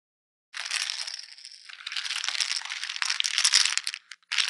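Poker chips clattering as a cascade of them falls and piles up: a dense rattle of clicks starting about half a second in, breaking into a few last scattered clicks near the end.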